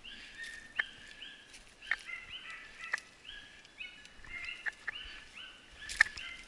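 A pack of small hunting dogs yelping and baying, several high voices overlapping in quick repeated calls, as they work a wild boar trail. Sharp snaps and crunches of footsteps on twigs and stones come about once a second.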